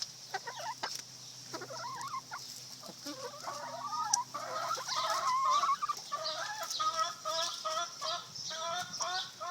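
Chickens clucking and calling, scattered at first, then a louder run of short repeated calls, about two or three a second, from about four seconds in.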